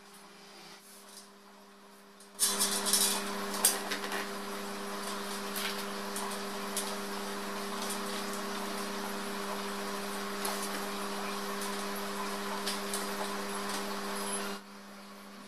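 Metal shelf parts being handled during assembly: scattered light clicks and taps of steel tubes and fittings over a steady hiss. The hiss and clicks start abruptly a couple of seconds in, with the loudest taps in the first second or so, and stop abruptly near the end.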